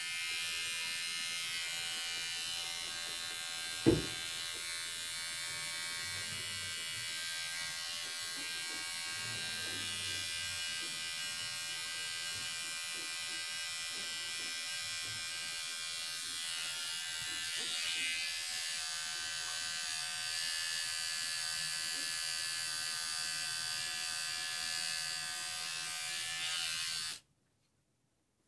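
Small battery-powered pet nail grinder buzzing steadily with a high whine as it files a puppy's claws. There is one sharp knock about four seconds in, and the grinder switches off about a second before the end.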